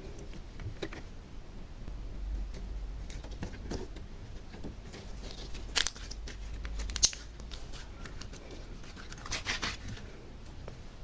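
Close-up handling sounds of slime-decorating materials: scattered small clicks and crinkles, with two sharper snaps in the middle and a short crackly flurry near the end.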